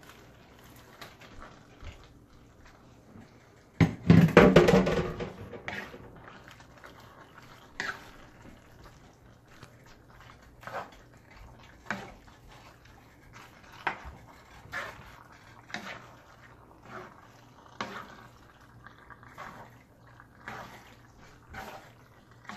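Cooked pasta tipped from a colander into a skillet of meat and white sauce, landing with a loud wet slide about four seconds in. Then a wooden spatula stirs and folds it through the thick sauce, with wet squelches and scrapes against the pan about once a second.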